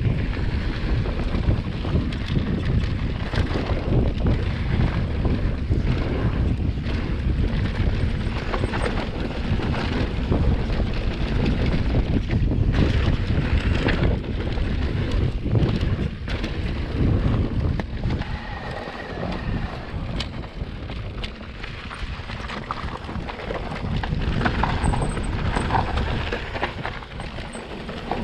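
Wind buffeting the microphone while riding an electric mountain bike, with a steady low rumble and scattered knocks and rattles from the bike over rough trail.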